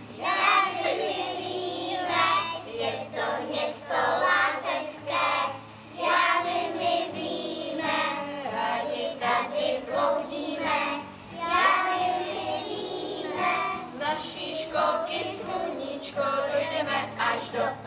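A group of young children singing a song together in phrases with short breaks between them, accompanied by an acoustic guitar.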